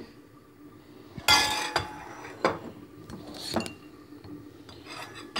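Dishes and cutlery being handled on a kitchen counter. One loud, ringing clatter comes about a second in, followed by a few lighter knocks and clinks.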